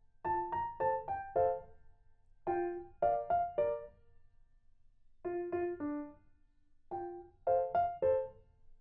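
Background piano music: short runs of a few quick, light notes with brief pauses between the phrases.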